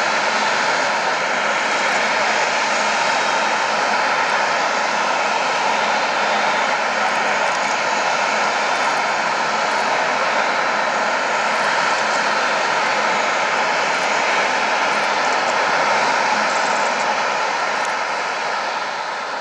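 Airbus A380's four jet engines running steadily at taxi power, a continuous loud jet noise that grows a little quieter near the end.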